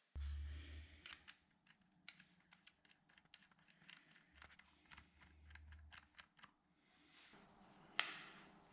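Faint, scattered light clicks and taps of a mortise jig being handled and adjusted on a door, with a sharper click near the end.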